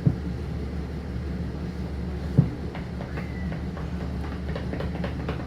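Steady low rumble of railway rolling stock heard inside a caboose, with two sharp knocks: one at the very start and one about two and a half seconds in.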